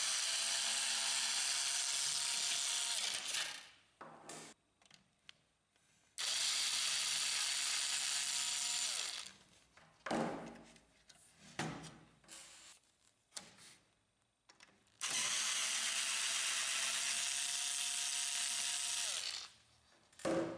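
Small cordless electric screwdriver backing out circuit-board screws in a laser printer. It makes three runs of about three to four seconds each, and its motor pitch drops as each run stops. Short clicks and knocks come between the runs.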